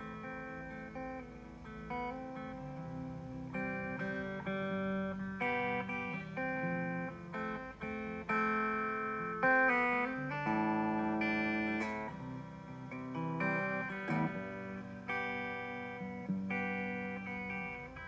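Acoustic guitar playing a run of chords, each struck and left ringing before the next.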